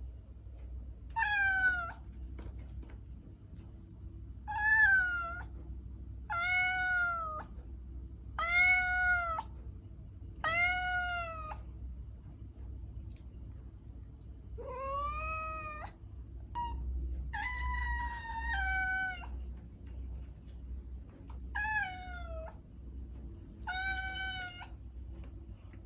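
Domestic cat meowing again and again: about ten high, arching meows, each roughly a second long and one to three seconds apart, over a faint steady low hum.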